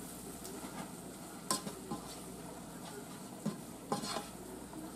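A large spoon stirring green beans in a saucepan, the food sizzling faintly in butter, with a few light knocks of the spoon against the pan about a second and a half in and twice near the end.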